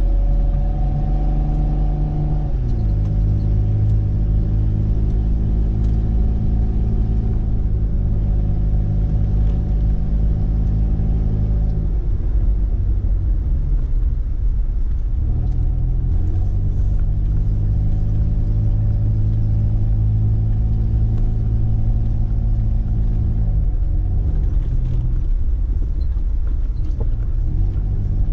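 Mitsubishi Pajero's 3-litre petrol V6 heard from inside the cabin, a steady, loud low drone as the 4x4 drives along a rough lane. Its pitch drops a couple of seconds in and again near the end, and for a few seconds in the middle it gives way to a rougher rumble before the drone returns.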